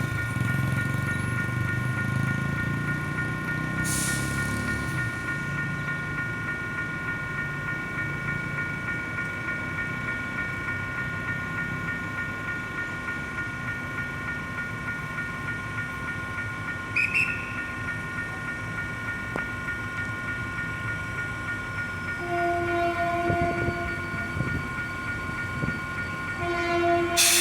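AUTOTROL electronic level-crossing bell ringing steadily as a train approaches. A train horn sounds twice near the end, the first blast lasting about a second and a half. A low rumble fades away in the first few seconds.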